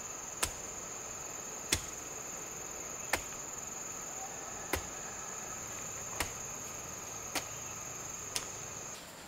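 Steady high-pitched insect chorus with sharp knocks about every second and a half, seven in all; the insect drone stops near the end.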